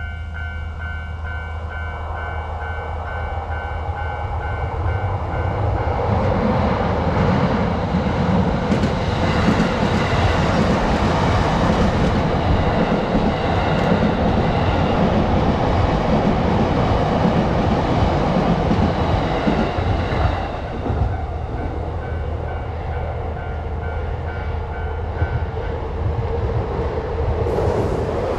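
Japanese level-crossing alarm ringing in rapid even pulses, about two a second, then a train passing for about fourteen seconds and covering the bell. The bell is heard again once the train has gone and stops a couple of seconds before the end.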